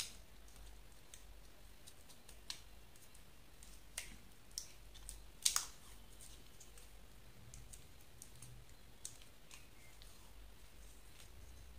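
Scattered small clicks and taps as hands wrap a roll of insulation tape around a bar magnet and plastic syringe. The loudest is a sharp double click about five and a half seconds in.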